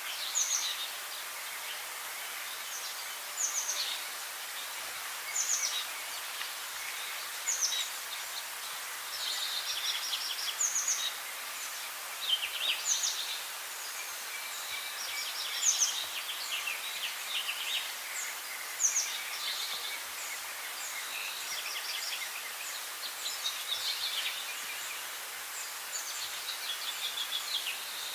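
Songbirds singing in short, repeated chirping phrases every second or two, over a steady high hiss.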